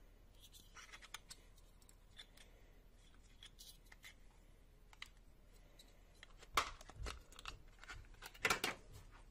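Handling noise from a small plastic USB tester and its snap-on black plastic end caps: scattered light clicks and rustles. Two louder sharp clicks come about two-thirds of the way in and again near the end, as the plastic parts and connectors are set down and fitted together.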